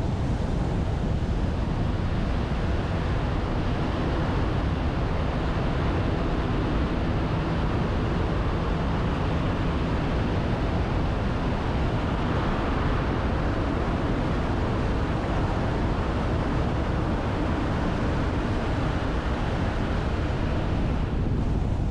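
Car driving along a mountain road: a steady rush of road and wind noise, with a faint low engine hum underneath.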